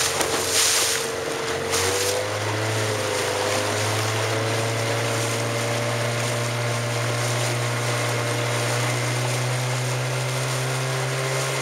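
Motorboat engine running steadily at cruising speed, its pitch rising slightly about two seconds in and then holding. Wind gusts on the microphone in the first couple of seconds.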